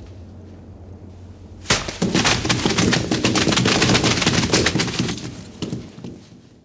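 A sudden burst of dense, rapid cracks and crackling, starting about a second and a half in, lasting some four seconds and fading out near the end.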